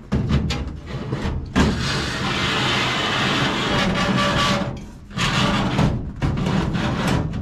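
Sheet-metal casing of a copper-coil heat exchanger being slid into a galvanized sheet-metal furnace plenum opening: a few knocks at first, then a long metal-on-metal scrape of about three seconds, then more scraping and knocking near the end.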